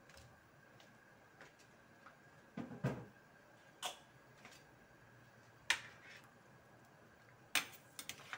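Occasional sharp clicks and knocks of cooking in a stainless steel pan: squash cubes set into coconut milk and a spatula knocking the pan, about half a dozen separate ticks with a duller thud about three seconds in, over a faint steady tone.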